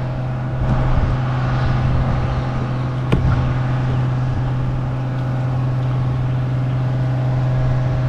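A steady low hum under an even rushing noise, with one sharp click about three seconds in.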